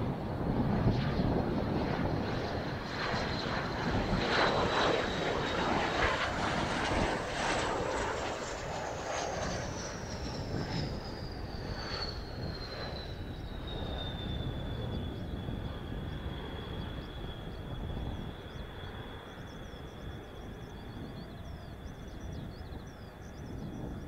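Kawasaki T-4 jet trainer's twin turbofan engines, a jet rumble with a high whine as it passes low along the runway and climbs away. The whine slides down in pitch as the jet goes by, then holds steady as the sound fades.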